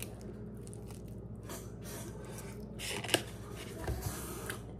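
Soft scraping and rustling of a fork working food on a plate, with a sharp click about three seconds in.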